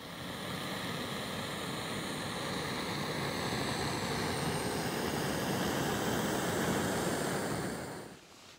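Small BRS canister gas stove burning steadily under a titanium pot, a continuous rushing hiss that fades out near the end.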